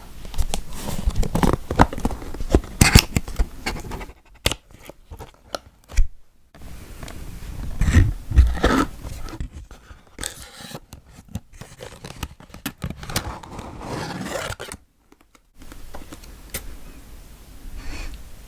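Close-miked scratching and tapping on small objects, in irregular bursts of clicks and scrapes with two short pauses.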